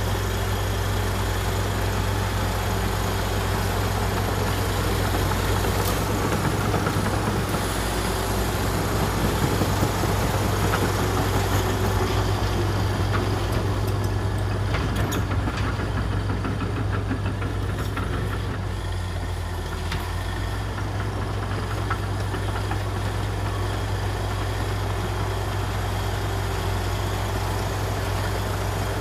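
Komatsu D61EX bulldozer's six-cylinder diesel engine running steadily, with a few short clicks around the middle.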